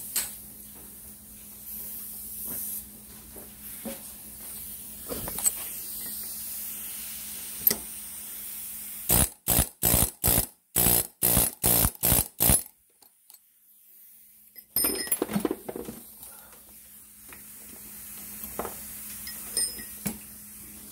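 Pneumatic air hammer fired in about eight short bursts in quick succession, each a hard rattle, vibrating a motorcycle handlebar spindle out of a seized bearing. Light clatter of metal parts being handled before and after.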